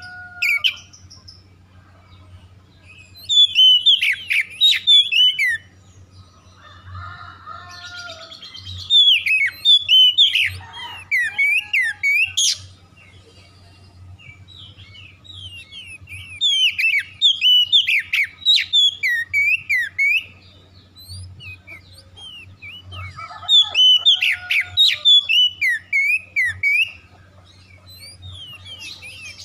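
Oriental magpie-robin (kacer) singing in full song: about four loud bouts of quick, varied whistled phrases, each a few seconds long, with short pauses between them.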